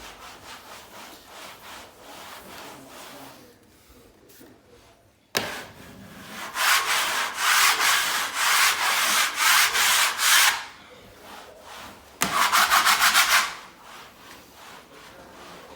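Wallpaper spatula stroked over the wallpaper, smoothing it down: soft rubbing strokes at first, a sharp click about five seconds in, then two spells of loud, fast scraping strokes, the last one quicker.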